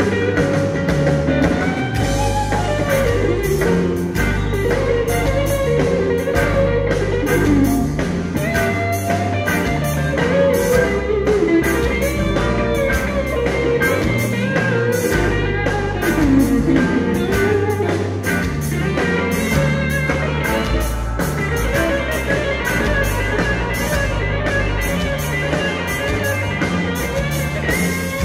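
Live blues band playing, led by an electric guitar solo with bending notes over bass and drums.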